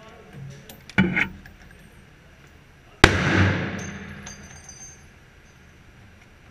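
Gunshots on an indoor shooting range: a sharp report about a second in, then a louder one about two seconds later that rings out in a long echoing decay.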